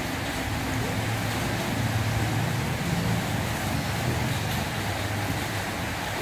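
Steady low mechanical rumble with a droning hum.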